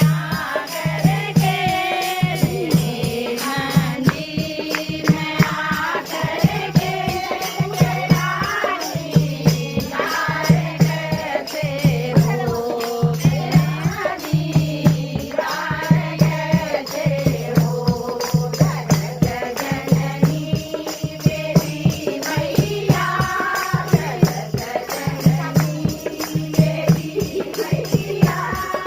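Hindi devotional song to the Mother goddess: voices singing a melody over a steady low beat about once a second, with quick percussion ticks throughout.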